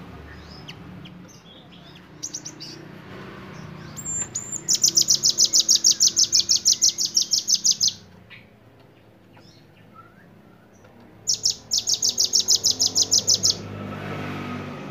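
Cinereous tit (gelatik batu) singing loud, sharp, high trills of evenly repeated notes, about ten a second, in two long runs with a few short bursts before them.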